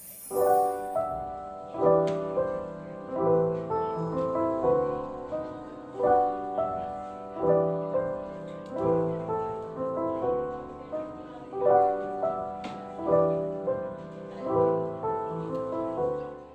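Background music: a melodic track of pitched notes in evenly repeating phrases with a steady beat, fading out at the very end.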